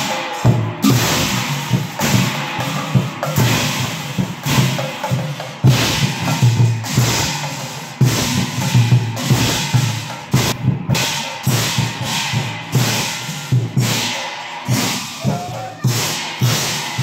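Nagara naam ensemble: large brass hand cymbals clashing together and nagara kettle drums beating in a steady, driving rhythm.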